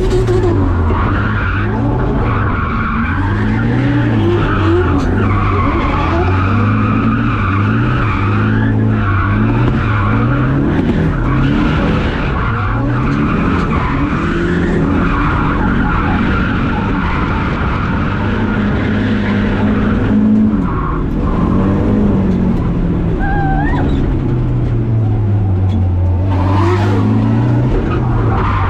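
Drift car on track, its engine revving up and down over and over while the tyres squeal through long slides.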